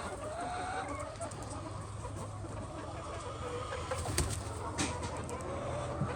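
Hens clucking in a poultry house over a steady low hum, with two sharp clicks about four and five seconds in.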